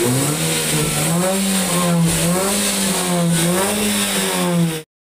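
Toyota Calya's engine running at raised revs through a 'racing' exhaust, the stock muffler replaced by a straight pipe to a rear Zigen muffler; the note rises and wavers as the throttle is blipped. It cuts off suddenly near the end.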